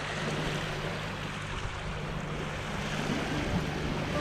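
Sailboat's inboard engine running steadily at low revs, a constant low hum, with water rushing along the hull and bow.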